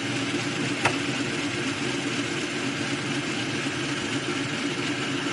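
A small motor running steadily, with one sharp click about a second in.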